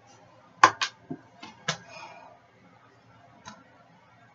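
Handling noise: a few sharp clicks and knocks, two in quick succession about half a second in, then scattered single clicks with faint rustling between them.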